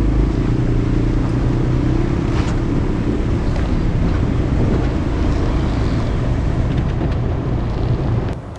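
GMC Canyon pickup truck driving off-road over sand: a steady engine drone with tyre and body noise and a few light knocks, dropping off suddenly near the end.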